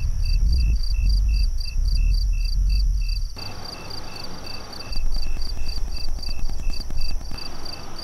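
Crickets chirping steadily, about three chirps a second, over a low rumble that drops away after about three seconds.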